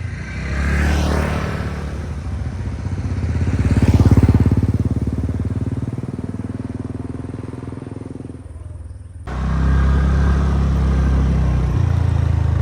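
Motorcycle engine running, swelling to a peak about four seconds in and then easing off. About nine seconds in the sound switches abruptly to a steady, lower engine note.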